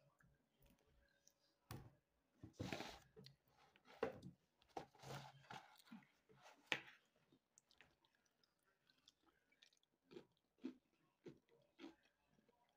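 Close-up eating sounds: fried chicken being handled and chewed, with sharp clicks and short crackly noises, several louder ones in the first half and fainter ones near the end.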